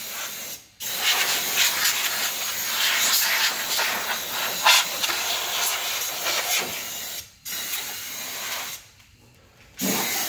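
Compressed air rushing from a telescoping blow gun as it blasts dirt out of a car's engine bay: a loud, even hiss in long bursts, cut off briefly three times as the trigger is let go.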